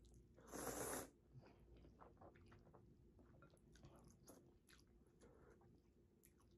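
A person slurping a forkful of instant noodles: a loud half-second slurp about half a second in, then soft wet chewing with small mouth clicks.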